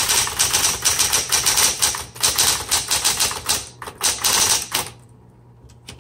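Smith Corona Coronet Electric 12 electric typewriter being typed on, a fast, dense run of key strikes that stops about five seconds in, with the machine's motor humming steadily underneath.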